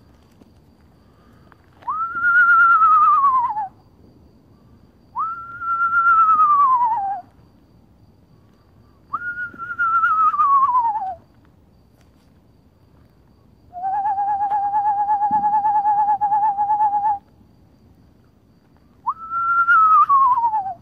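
A person whistling owl calls to lure owls: four calls that jump up and slide slowly down in pitch, with one steady quavering note of about three seconds between the third and fourth. The pattern is that of an eastern screech-owl's descending whinny and monotone trill.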